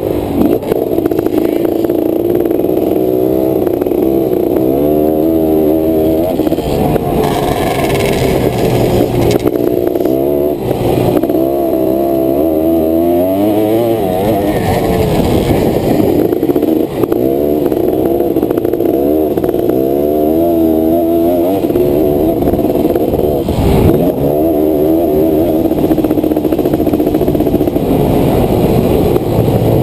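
1986 Honda ATC 250R three-wheeler's single-cylinder two-stroke engine under way, revving up and dropping back over and over as it accelerates and shifts, with brief lift-offs near 17 and 24 seconds in.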